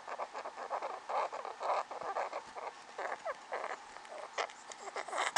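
Hairless rats breathing noisily with short, rasping, crackly sounds, about two to three a second, with a brief squeak about three seconds in: the respiratory noise of rats that a vet diagnosed with respiratory infection and possible pneumonia. A louder sudden noise comes near the end.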